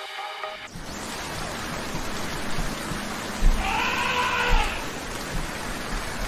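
Steady rain hiss, after music cuts out in the first second. About four seconds in a single arching animal call with several overtones rises and falls over about a second, with a few low thuds around it.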